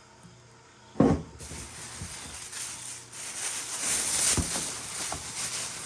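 Rustling and crinkling of packing wrapping as a chunk of chert is handled and unwrapped, with a few soft knocks of stone.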